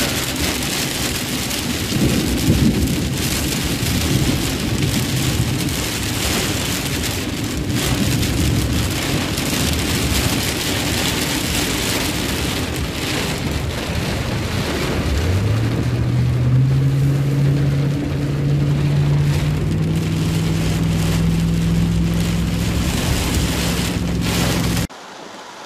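Heavy rain falling on a car's roof and windshield, heard from inside the moving car. About two-thirds of the way through, a low engine hum rises in pitch as the car speeds up, then holds steady; the sound cuts off suddenly near the end.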